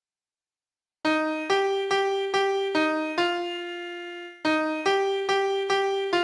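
Piano playing a simple melody one note at a time. It starts about a second in with five quick notes and a sixth held for over a second, then after a brief break the line resumes with more evenly spaced notes.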